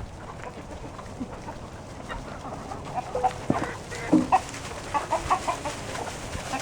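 Chickens clucking, many short calls, busier in the second half, as the flock is called in to be fed.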